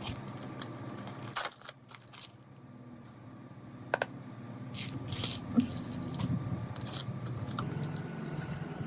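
Small clicks and taps of an iPhone XR's display and frame being handled as the screen is lifted and swung open, with a sharp click about a second and a half in and smaller ones after. A steady low hum runs underneath.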